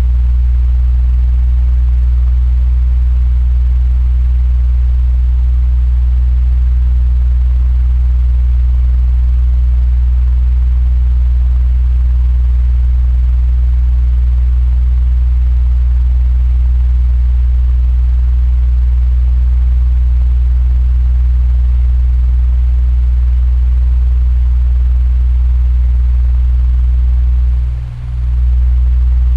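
Electric fan running steadily: a strong low hum with an even airy hiss above it. The loudness dips briefly near the end.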